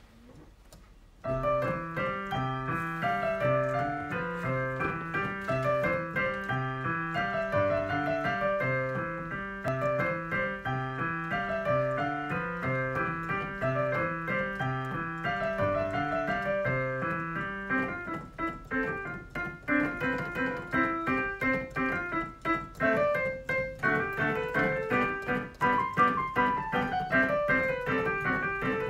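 Background piano music, a repeating pattern of notes that starts about a second in; a falling run of notes near the end.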